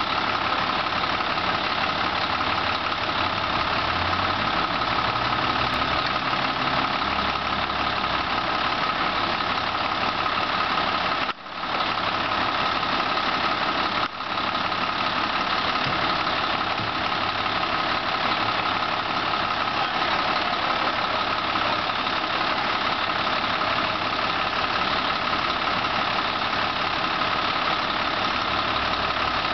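Fire engine's diesel engine idling steadily, with two brief drops in the sound near the middle.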